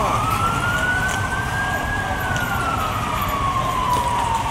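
Police siren wailing: one slow cycle that rises in pitch for about two seconds, then falls slowly until near the end, over steady low background noise.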